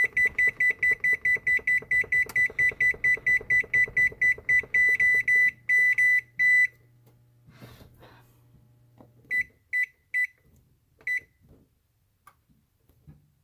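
An oven's electronic control panel beeping fast and evenly, about four high beeps a second, as a button is held to run the timer up to 30 minutes. The beeping stops about six and a half seconds in. A low hum follows, then four separate single beeps as buttons are pressed one at a time.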